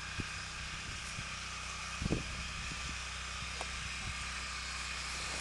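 Steady background hiss and low hum, with a few soft low thumps, the clearest about two seconds in.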